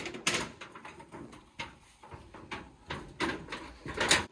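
Irregular rustling and scuffing of leaves and footsteps as someone walks through a garden plot of banana plants, with about ten short scrapes and the loudest near the end.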